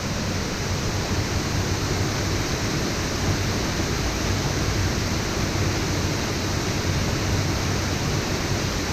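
Steady rushing of a stream's water tumbling over a small waterfall, an even hiss-like roar that holds unchanged throughout.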